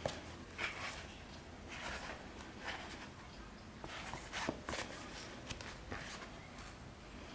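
Paperback manga volumes being handled and leafed through: irregular paper rustles with light taps and clicks.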